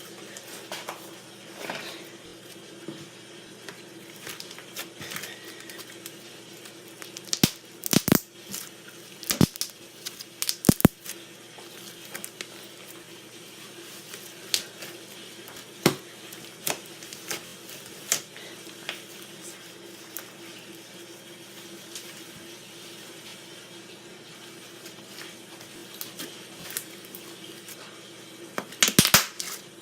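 Pink slime worked by hand, squishing and popping: scattered sharp pops as trapped air bursts, in clusters about eight to eleven seconds in and again near the end, with quieter squishing between.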